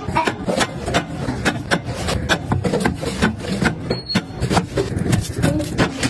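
Drink cans, plastic bottles and tubs being set down and shuffled on refrigerator shelves: a quick, uneven run of clicks and taps with rubbing between them.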